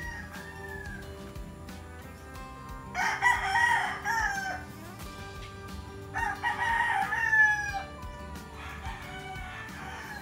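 Rooster crowing: two loud crows of about two seconds each, about three and six seconds in, each falling in pitch at the end, with fainter crows at the start and near the end. Soft background music plays underneath.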